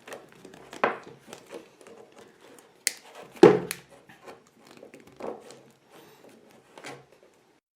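Wire cutter at work on a bike lock's thin steel cable inside its soft rubber sheath: scattered clicks, rustles and knocks. The loudest knock comes about three and a half seconds in, just after a sharp click.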